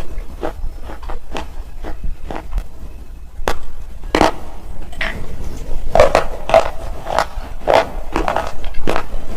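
Hard black slate chips crunching between the teeth as they are bitten and chewed, a run of sharp crunches that come sparsely at first and then about twice a second from about six seconds in.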